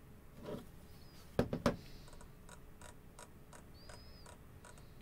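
Scroll wheel of a Jumper T16 radio transmitter being rolled through menu options: a run of small, light clicks, with a few louder knocks about a second and a half in.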